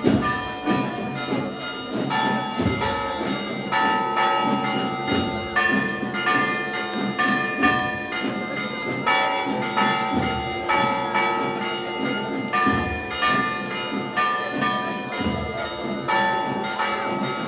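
Church bells ringing during a procession, with rapid strikes whose tones overlap into a continuous peal.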